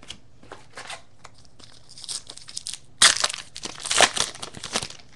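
Trading cards being handled and set down, with small scattered clicks and rustles. From about three seconds in, the wrapper of a 2007 SP Rookie Edition baseball card pack crinkles as it is torn open, the loudest part.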